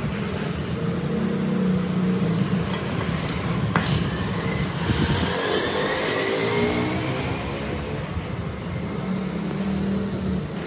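An old diesel engine running steadily, with a sharp click about four seconds in.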